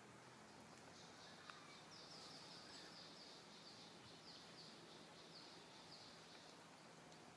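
Near silence with faint outdoor hiss, over which a distant bird gives a run of short, high, falling chirps, about three a second, starting about two seconds in and stopping before the end.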